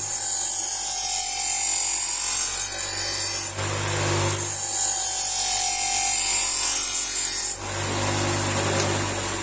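Full-speed bench grinder with a slotted paper honing wheel, a knife blade pressed to it in two long passes: a loud high hiss during each pass, with the motor's low hum in the short break between them and after the second.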